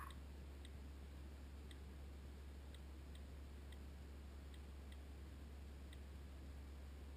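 Near silence: room tone with a steady low hum and a few faint, irregular ticks.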